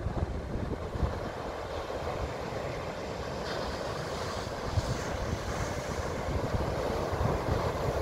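Ocean surf breaking and washing up a sandy beach: a steady rushing hiss that swells a little about halfway through. Wind rumbles on the microphone underneath.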